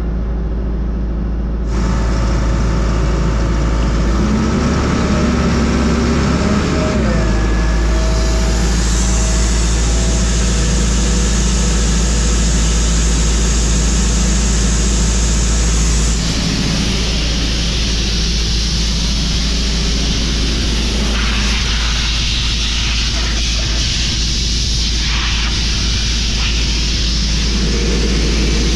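Van-mounted engine-driven compressor running steadily: a constant low engine drone under a broad hiss that grows louder about two seconds in.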